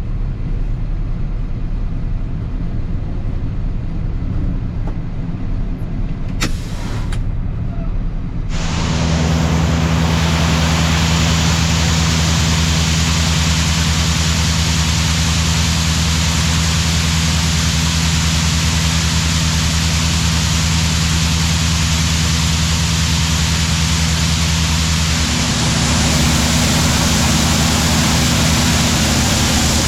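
Heavy diesel farm machinery running steadily. About eight seconds in, a much louder steady machine noise starts suddenly: an even rushing hiss over a constant low engine hum.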